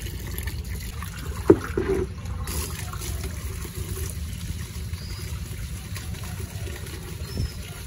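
Tap water pouring steadily into a plastic bucket while leafy greens are washed by hand, with splashing and sloshing. A sharp knock or splash comes about one and a half seconds in, with smaller ones just after and near the end.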